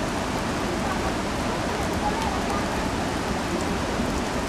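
A waterfall and its mountain stream rushing steadily, an even hiss of falling water.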